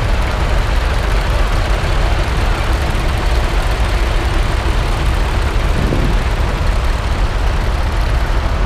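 Engines of several vintage tractors running steadily, a loud, even low rumble.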